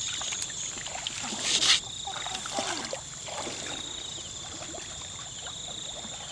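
Water splashing and sloshing as people wade and grope with their hands through a shallow muddy pond, with one louder splash about a second and a half in.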